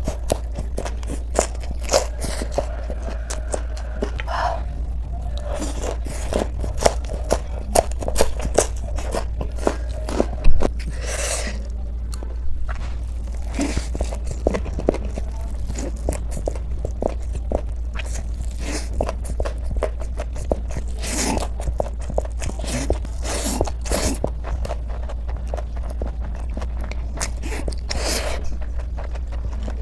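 Close-up ASMR eating sounds: crunchy bites and chewing of spicy fried vegetable pieces and hand-held noodles, a dense run of small crunches and mouth clicks, loudest about ten seconds in.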